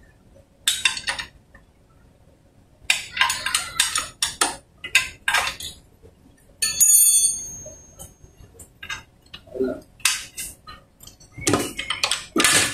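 Steel wrench working the rear axle nut of a Honda TMX 125 motorcycle: irregular clusters of short metal clinks and scrapes, with one clear ringing clink about seven seconds in.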